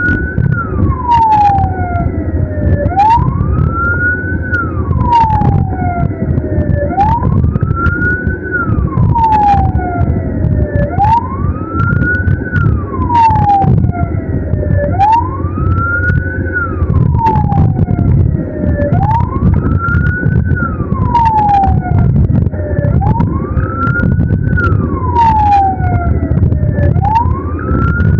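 Ambulance siren wailing, its pitch sweeping up and back down slowly about every four seconds, over a steady heavy rumble of engine and road noise. Scattered sharp clicks cut through it.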